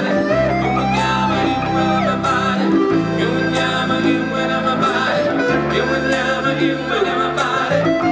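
Live cover-band performance of a song: sung and instrumental melody lines gliding over held bass notes that change every second or two, with sharp percussive hits now and then.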